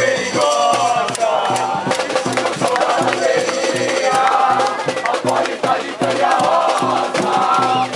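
Crowd of student supporters singing a cheer song together, backed by a drum group beating a steady rhythm.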